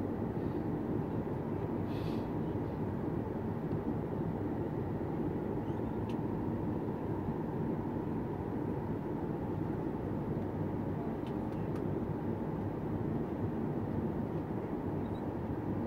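Steady in-flight cabin noise of a Boeing 737 MAX 8 airliner, heard from a window seat beside the wing and its CFM LEAP-1B engine: an even, mostly low-pitched rush of engine and airflow at a constant level.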